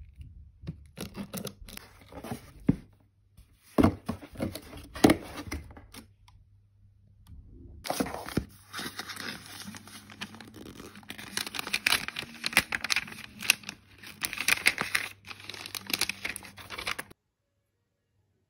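Paper and cardboard being handled and torn open: a delivery box unpacked and a paper bag's taped seal peeled and ripped, in bursts of tearing and crinkling that stop suddenly near the end.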